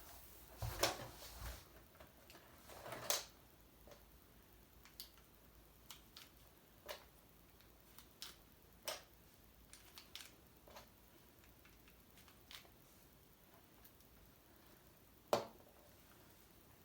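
Faint handling noise of a plastic Lego model: scattered light clicks and knocks, with a burst of rustling and clicking in the first few seconds and one sharper click near the end.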